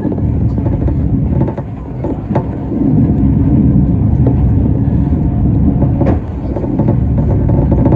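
Mitakesan funicular car running down its track: a steady low rumble of the wheels on the rails, with a sharp click or knock about two seconds in and again about six seconds in.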